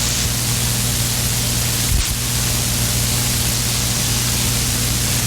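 CB radio receiver hissing with static between transmissions, a steady low hum underneath, and a brief click about two seconds in.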